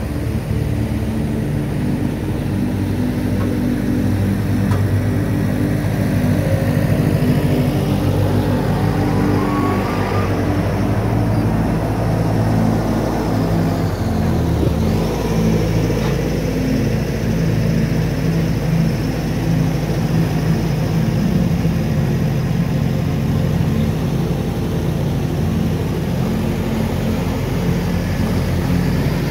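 Boat engine running steadily at speed, a low drone with a slight shift in pitch about halfway through.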